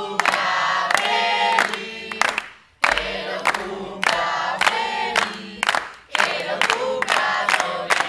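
A group of young people chanting a song together in unison while clapping their hands in rhythm; the singing breaks off briefly twice.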